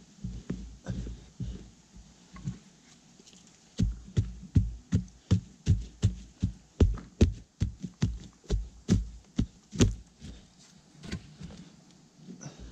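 A wooden stick jabbed repeatedly into sandy soil to dig a small fire pit: dull thuds, about three a second, for some six seconds starting about four seconds in, with softer scraping and scooping of loose dirt by hand before and after.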